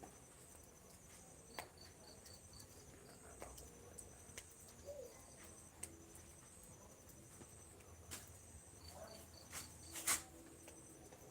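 Faint evening ambience of insects, crickets among them, chirping in steady pulsed trains high in pitch. A short run of five quick even notes sounds twice. Scattered sharp clicks fall throughout, one much louder about ten seconds in.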